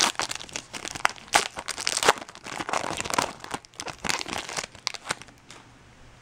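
Foil wrapper of a trading-card pack crinkling and tearing as it is opened by hand, in quick irregular crackles that die away about five and a half seconds in.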